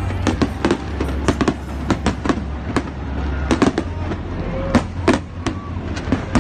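Aerial fireworks shells bursting in a rapid, irregular string of bangs, several a second, over music with a low steady bass.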